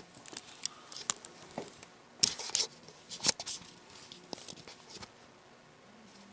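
Handling noise: irregular light clicks and short rustles as computer parts are picked up and moved about, with two louder clatters a couple of seconds in and about a second later.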